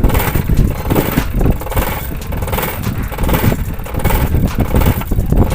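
A common-rail diesel injector firing on an electronic injector driver, its solenoid clicking rapidly in a steady chatter while it sprays fuel under hand-pumped pressure. The clicking shows the solenoid is working.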